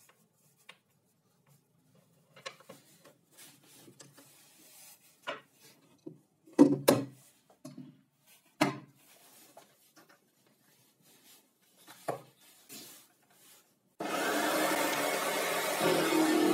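Wooden parts of a homemade plywood jigsaw table handled and slid by hand: scattered knocks and rubs of wood on wood, the loudest around 7 and 9 seconds in. A loud continuous noise starts abruptly about 14 seconds in.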